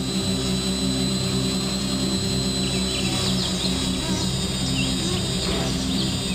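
Background music with low notes that change in steps, over a steady high whine. A few short high chirps come between about three and five and a half seconds in.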